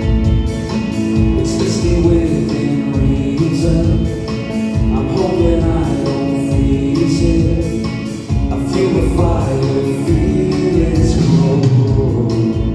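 Live band music with a steady beat and singing.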